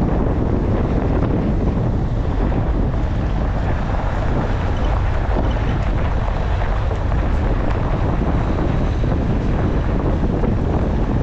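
Steady wind rumbling on the microphone, heaviest in the low end, with no distinct events.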